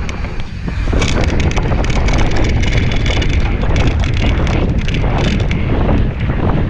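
Mountain bike descending a dirt trail at speed: wind buffeting the camera microphone with a loud low rumble, over tyre noise on dirt and a steady run of clicks and rattles from the bike jolting over bumps.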